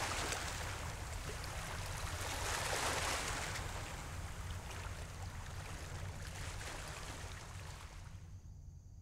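Open-air shore ambience of shallow sea water washing around a wading angler, with a steady low wind rumble, fading out near the end.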